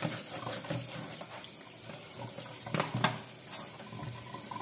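Tap water running into a stainless steel sink and over a plastic-framed air-conditioner mesh filter being rinsed by hand, with a few short splashes and knocks as the filter is handled, the strongest about three seconds in.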